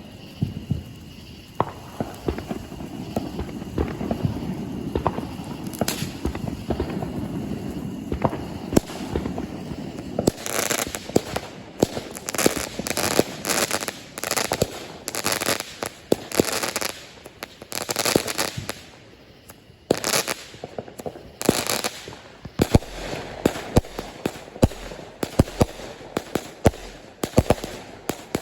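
Fireworks display: scattered booms at first, then from about ten seconds in, repeated volleys of crackling bursts in quick clusters.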